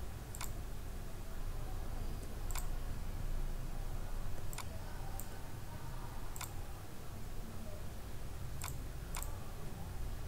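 Computer mouse clicking: about seven single, sharp clicks at irregular intervals over a low, steady hum.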